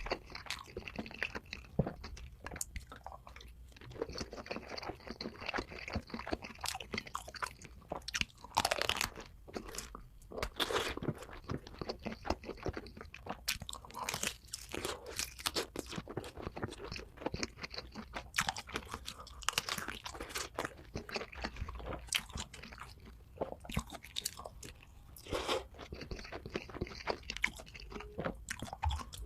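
A person biting and chewing food close to the microphone, mukbang-style: a long run of crisp crackling clicks from the food breaking between the teeth, with wetter chewing between bites.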